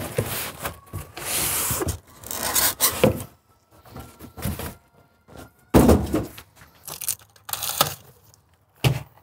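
Packaging being handled as an exhaust silencer is unpacked: rustling, rubbing and tearing of wrapping and cardboard in irregular bursts, with a sudden knock about six seconds in and a smaller one near the end.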